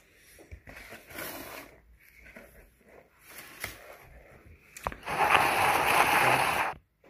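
Handling noise from the T4E X-Tender handguard being drawn out of its cardboard box: brief scrapes and rustles, a single sharp click, then a loud scraping rustle for nearly two seconds that cuts off abruptly near the end.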